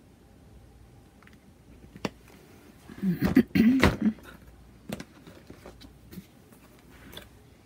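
Plastic paint bottles being handled and set down on the table: a click about two seconds in, a louder cluster of knocks and rattles around three to four seconds, then a few light clicks.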